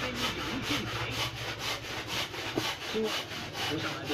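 Steady rhythmic rasping, about four strokes a second, like sawing or filing, over a low steady hum.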